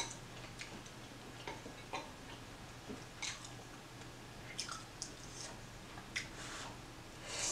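Faint eating sounds from a person eating spicy noodle soup: soft chewing and mouth noises and occasional light clicks of utensils, with a louder breathy sound near the end.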